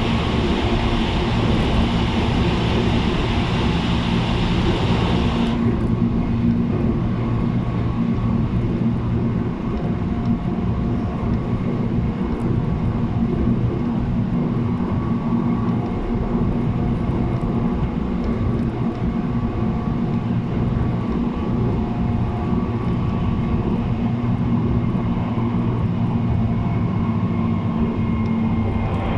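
JR East 719 series electric train running at speed, a steady motor and gear hum over rail and wheel rumble, from the unit labelled an abnormal-noise car. A high hiss in the sound drops away suddenly about five seconds in.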